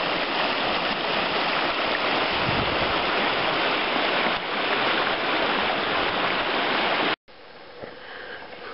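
Shallow mountain stream rushing over riffles, a steady loud rush of water that cuts off suddenly near the end.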